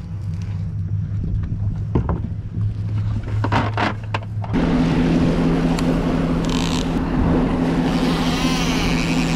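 Boat's outboard engine idling with a low hum and a few sharp clicks; about four and a half seconds in it cuts to a Suzuki 250 outboard running underway, a louder steady drone with water rushing past the hull.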